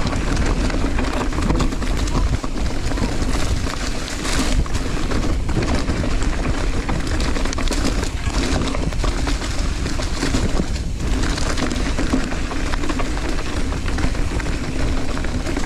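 Mountain bike running fast down a rough dirt trail: a steady rumble and rattle from the tyres and bike over dirt and rock, with frequent small knocks.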